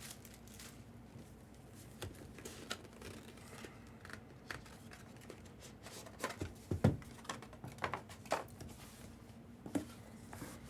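Product packaging being handled and torn open: faint scattered rustles, crinkles and small clicks, busier a little past the middle.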